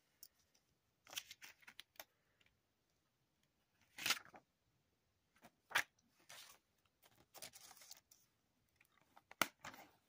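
Hands handling a Blu-ray case and its paper insert: scattered faint rustles, clicks and scrapes, the loudest a brief scrape about four seconds in.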